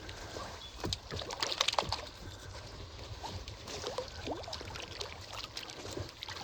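Water dripping, trickling and splashing as a wet gillnet is hauled in over the side of a small boat, with scattered small drips and splashes.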